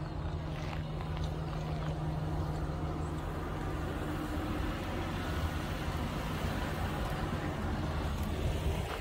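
Farm tractor engine running steadily as it tows a wagon of riders past, a low hum that fades out about four seconds in over a continuous low rumble.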